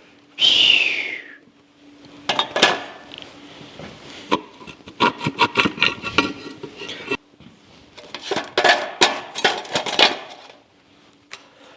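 Small steel axle parts, shims and hub pieces, clinking and rattling as they are handled and set down, with scattered sharp clicks for most of the stretch. A brief falling whine sounds about half a second in.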